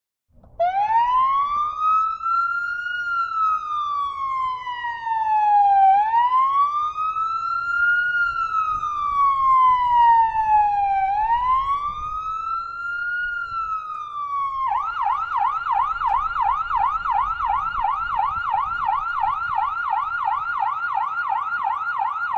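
Electronic siren sound starting about half a second in: three slow wails, each rising quickly and falling slowly over about five seconds. About fifteen seconds in it switches abruptly to a fast yelp of about four sweeps a second.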